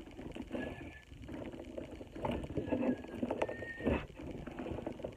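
Slime with small foam pieces mixed in being squished and kneaded by hand: irregular wet crackling and squelching, with a few short thin squeaks.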